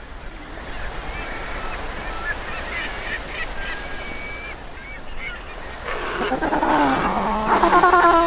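Penguins calling. Faint short chirps sound over a steady hiss of surf at first, then loud, wavering calls build from about six seconds in.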